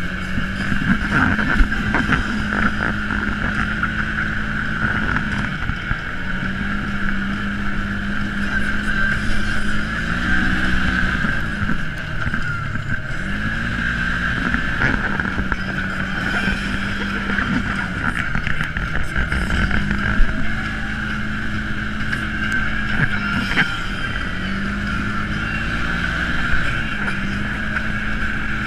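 Side-by-side UTV engine running at trail speed over a dirt track. Its pitch holds steady, then dips and swoops back up several times as the throttle eases off and comes back on. Rough-ground rumble and a few sharp knocks from bumps run under it.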